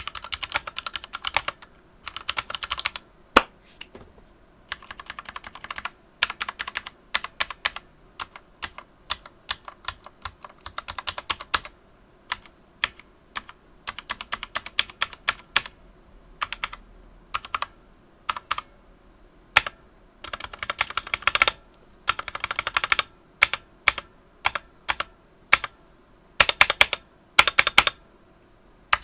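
Typing on a Ducky One 2 Mini mechanical keyboard with linear Cherry MX Red switches: fast runs of key clicks and clacks broken by short pauses, with now and then a single louder stroke.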